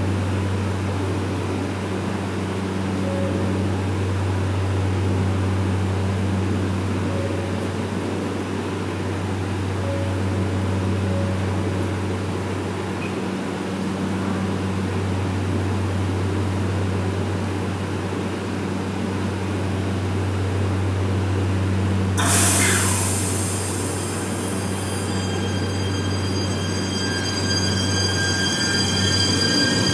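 JR Shikoku 8600 series electric express train standing with a steady low hum from its equipment. About 22 seconds in, a sudden hiss of released brake air fades over a couple of seconds. Then the high whine of the traction inverters sets in and starts to rise as the train begins to pull away.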